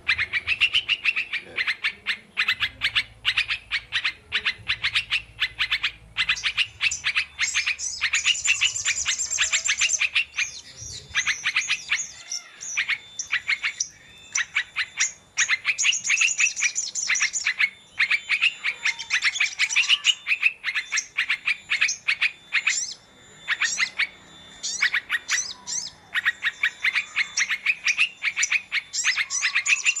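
Small songbirds chirping in a rapid, continuous chatter of short high notes, with brief higher trills breaking in now and then.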